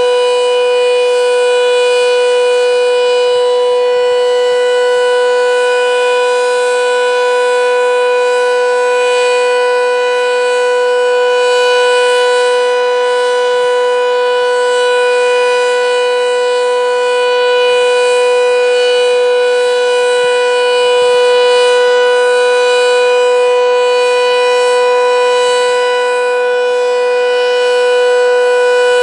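Sentry 7V8-B outdoor warning siren sounding its steady alert tone: one loud held pitch that neither rises nor falls.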